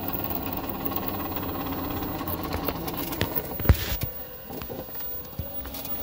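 Club Car DS golf cart's rear differential transaxle running as the cart drives: a steady mechanical drone, with a sharp knock about two-thirds in, after which it turns quieter. The drone is the transaxle noise that is loudest at light or no load and fades under hard acceleration or braking.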